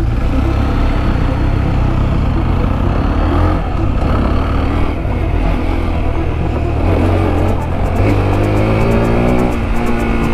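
Motorcycle engine running while riding along a dirt track, revs rising and falling, with background music with a steady beat coming in over the last few seconds.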